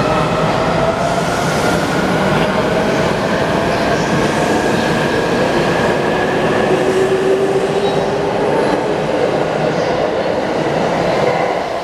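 E259 series Narita Express electric train pulling out and accelerating past at close range: its traction motors give a whine of several tones that slowly rises in pitch over the rumble of the wheels on the rails. The sound drops away near the end as the last car goes by.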